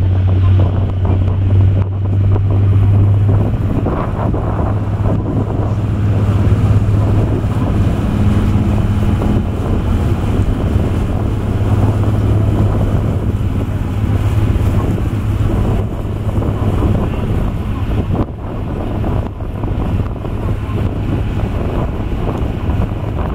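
Sightseeing cruise boat under way: its engine drones steadily under the sound of water splashing along the hull, with wind buffeting the microphone.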